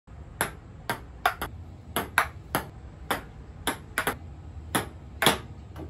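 Table tennis ball clicking off the paddle and bouncing on the table, about fourteen sharp ticks at an uneven pace, some in quick pairs.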